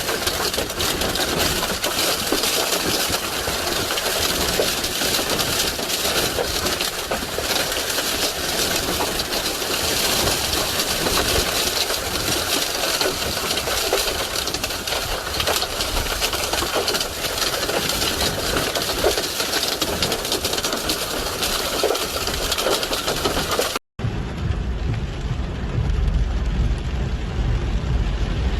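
Loud, steady rush of storm water, heavy rain and running water with a fine dense pattering. After an abrupt cut about 24 seconds in, a deep low rumble takes over.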